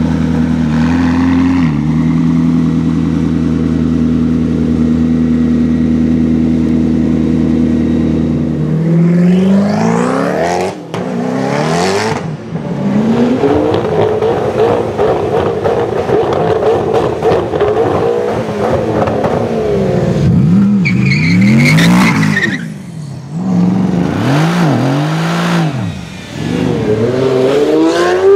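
McLaren P1's twin-turbo V8 idling steadily. About nine seconds in, this gives way to supercar engines revving hard and accelerating past, their pitch rising and falling several times.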